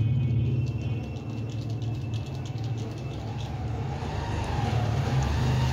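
A low, steady mechanical hum, like a motor or engine running. It eases off about a second in and builds again near the end.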